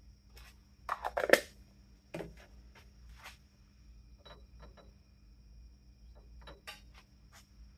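Small metal differential parts being handled: locker springs and parts set into a Torq Locker half, making light clicks and taps, with a louder clatter of several knocks about a second in and another knock just after two seconds. A faint steady hum runs underneath.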